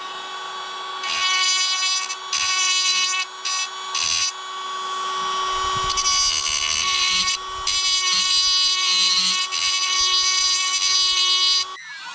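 A small electric power tool running with a steady high whine, growing louder in short bursts and then for several seconds at a stretch, and cutting out near the end.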